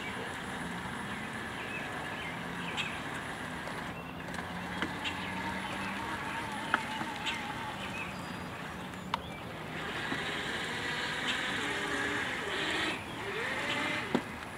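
Yarbo tracked yard robot driving over uncut grass under remote control: a steady electric motor hum with track and grass noise and a few light clicks. Near the end the motor whine rises in pitch as it speeds up.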